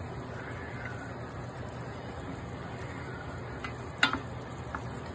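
Lamb, carrot and onion broth bubbling steadily in a stainless steel pan as a wooden spoon stirs it. The spoon knocks sharply against the pan once about four seconds in, with a couple of lighter taps around it.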